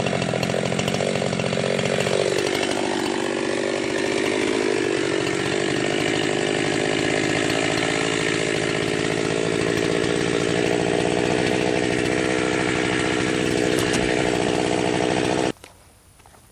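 Jonsered 2071 two-stroke chainsaw running at full throttle. Its pitch drops about two seconds in as it takes load, then holds steady, and the sound stops abruptly near the end. The owner thinks the saw is running fairly rich on its stock muffler.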